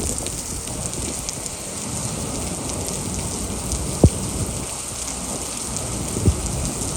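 Typhoon rain and wind-driven spray hissing steadily, with a sharp knock about four seconds in and a smaller one near the end.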